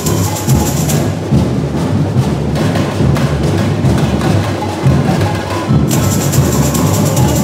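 Samba school bateria (drum section) playing live: dense, driving samba drumming with heavy low drums. The high rattling layer drops out about a second in and comes back near the end while the drums keep going.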